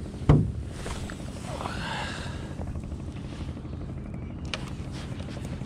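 A boat's engine running steadily with a low rumble, broken about a third of a second in by one sharp knock on the boat. A short wavering high sound comes about two seconds in.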